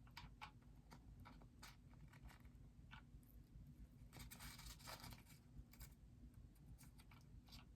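Faint scattered clicks and light rubbing of small plastic parts being handled: a tiny checkered flag being worked into a bobblehead figure's hand, with a brief scratchy rustle about four seconds in.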